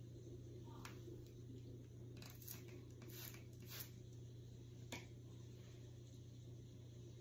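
Near silence: a steady low room hum with a few faint short clicks and soft rustles of handling.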